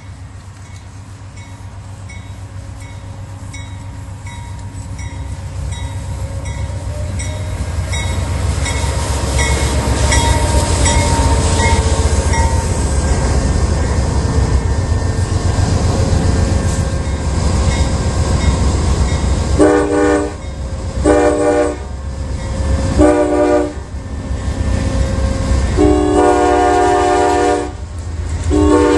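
Amtrak P42DC diesel locomotives approaching and passing, growing louder into a heavy rumble with wheel clatter, while a faint regular dinging repeats about twice a second during the approach. About twenty seconds in, the Nathan K5LA five-chime air horn sounds three short blasts, then two long ones near the end.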